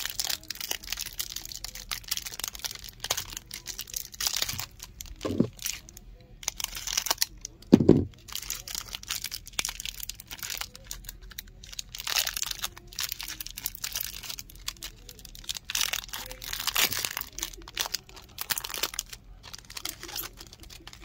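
Clear plastic wrapper of a trading-card pack crinkling and tearing as hands work it open. There is a dull thump a little after five seconds and a louder one about eight seconds in.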